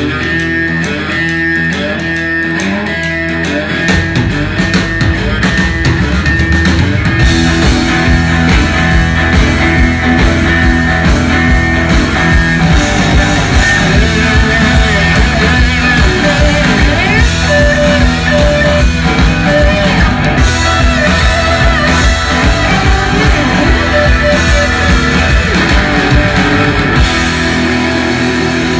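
Live alt-country rock band playing loud through a PA: electric guitars, bass guitar and drum kit in an instrumental passage. The band gets fuller and louder about four seconds in.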